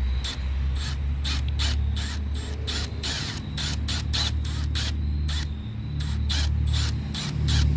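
Hand rivet tool being worked in quick repeated squeezes, about two to three sharp mechanical clicks a second, setting rivets through the car's rear wing, over a steady low hum.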